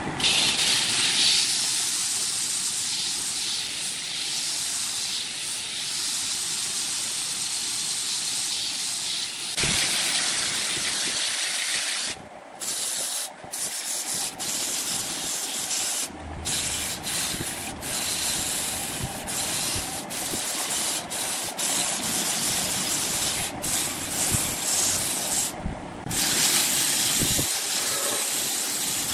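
Sandpaper held by hand against a large red hardwood turning spinning on a wood lathe, giving a steady hissing rasp with a few brief breaks.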